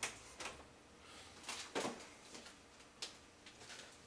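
Refrigerator door pulled open with a sharp click right at the start, then a few knocks and rattles as items on its door shelves are handled, loudest near two seconds in.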